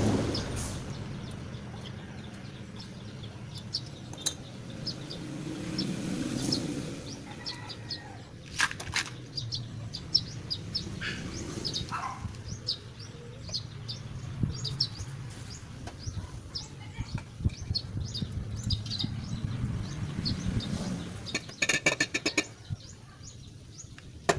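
Metal clinks, knocks and tool sounds as the exhaust pipe is unfastened and pulled off a small stationary generator engine, with a quick rattling run near the end.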